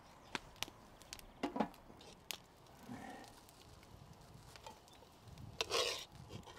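Open wood fire crackling: scattered sharp pops and snaps from burning sticks, with a louder burst of noise lasting about half a second near the end.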